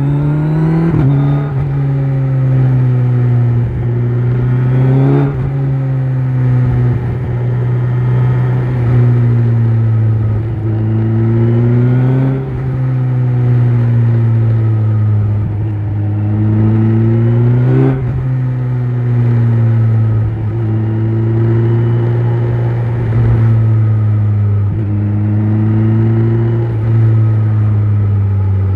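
Kawasaki Z900's inline-four running through an Akrapovic exhaust while riding: engine pitch climbs under throttle and drops sharply at gear changes about four times, with gentler rises and falls between.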